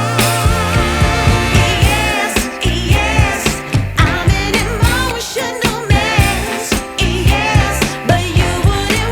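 Background music: a pop/soul song with a sung vocal over a steady beat.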